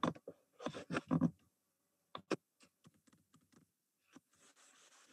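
Quiet pause holding soft, indistinct sounds near the start, then two sharp clicks a little over two seconds in, followed by a few faint scattered ticks.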